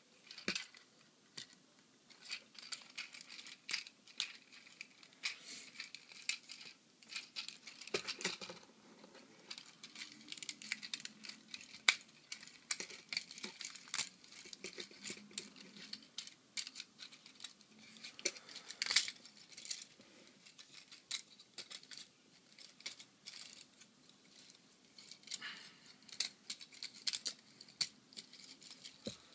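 Plastic joints and panels of a Transformers Prime Rumble action figure clicking and knocking as it is transformed by hand from car mode to robot mode, in irregular sharp clicks.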